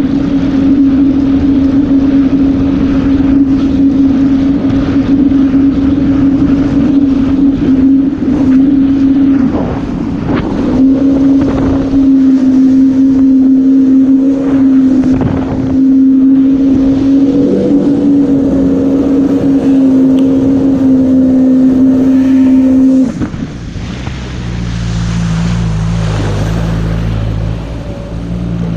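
A 2005 Yamaha VX110 WaveRunner's four-stroke engine running hard at a steady pitch, with a brief dip about ten seconds in. About three-quarters of the way through it is throttled back and drops to a lower, quieter note.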